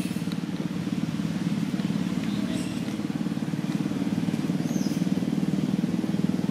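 A small engine running steadily: a continuous low drone with a rapid even pulse. A couple of faint, brief high chirps come through about two and a half and five seconds in.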